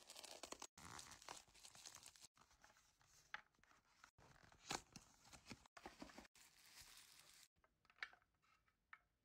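Faint unboxing sounds: a craft cutter slitting the tape on a plastic mailer bag, with plastic tearing and crinkling, broken by abrupt cuts. Later come sparser light clicks and taps as a box and a plastic water bottle are handled, with one sharper click about halfway through.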